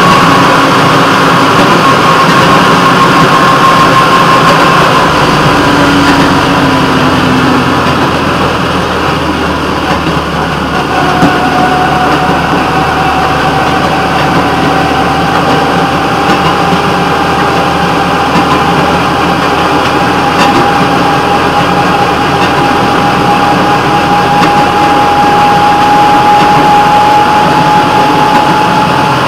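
The engine of a rail vehicle runs steadily as it travels along the track. A whining tone over the engine sound fades a few seconds in. About a third of the way through, a lower whine comes in and slowly rises in pitch to the end.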